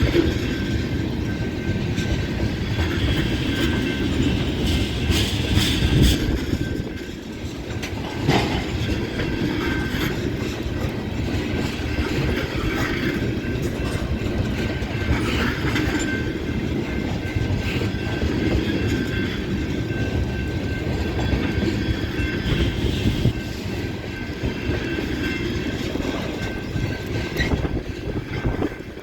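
Long CSX intermodal freight train rolling past: a steady rumble of steel wheels on rail with clickety-clack over the joints. Sharp clanks come about 6 and 8 seconds in.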